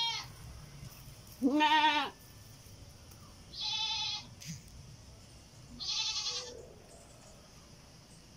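Goat bleating: the end of one call at the start, then three more calls about two seconds apart, each under a second long with a wavering pitch. The second call is the loudest and lowest.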